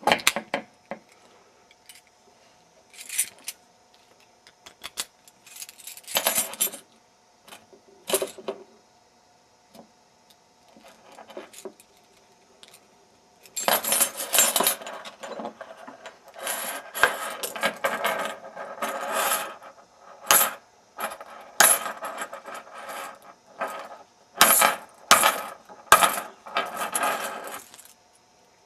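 Bump key in a pin-tumbler lock being struck with a pair of pliers: sharp metallic taps and clinks, a few scattered at first, then rapid repeated strikes from about halfway on.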